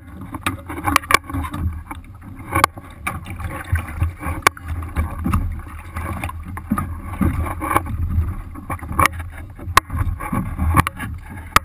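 Water lapping and sloshing against the hull of a small Sunfish sailboat, with many irregular sharp knocks and taps on the hull and deck.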